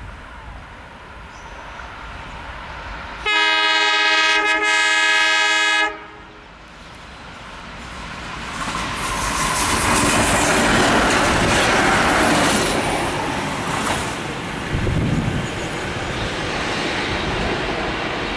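Red Hen diesel railcar approaching and passing close by: about three seconds in it sounds one steady horn blast lasting about two and a half seconds that cuts off suddenly. The running noise of the railcar's engine and wheels on the track then builds to a peak as it goes past.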